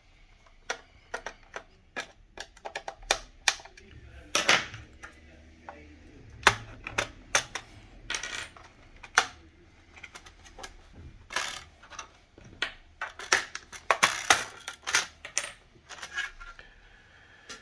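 Irregular small clicks, taps and light clatter of hard plastic and metal being handled as the laptop's bottom panel and RAM module are worked loose, with a few louder knocks scattered throughout.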